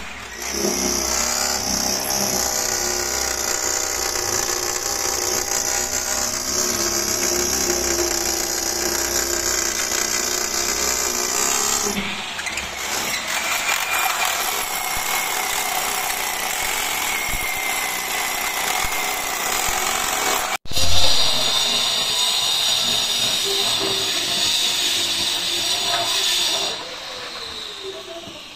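Power tool running steadily at full speed. Its sound changes about twelve seconds in, cuts off abruptly and resumes a little after twenty seconds, and drops much quieter for the last two seconds.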